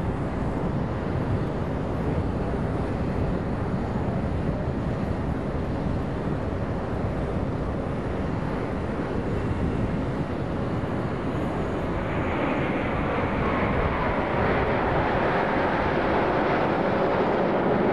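Jet noise from a formation of nine BAE Hawk Mk132 trainer jets flying overhead, a steady rush of engine sound that grows louder and brighter about two-thirds of the way through as the formation comes closer.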